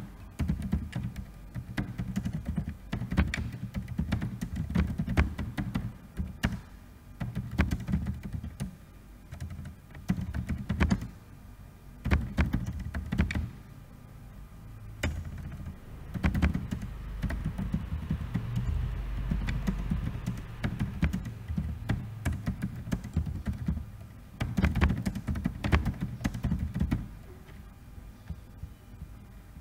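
Typing on a computer keyboard: runs of key clicks in bursts, with short pauses between them.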